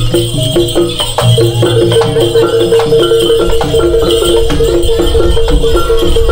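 Traditional East Javanese music for a kuda kencak (dancing horse) performance: a repeating pattern of short pitched notes over frequent percussion strikes.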